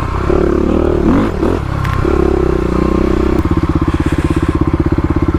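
Kawasaki KLX351 single-cylinder dirt bike engine with an aftermarket exhaust, running with shifting revs. About halfway through it settles into an even, fast pulsing beat.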